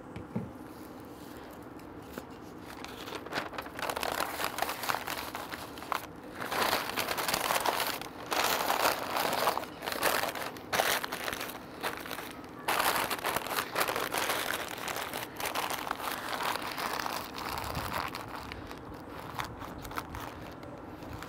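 Butcher paper crinkling and rustling in irregular bursts as it is folded loosely around beef ribs.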